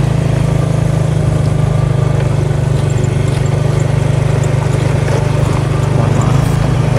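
A motor vehicle's engine idling steadily, an even low pulsing hum that holds one pitch throughout.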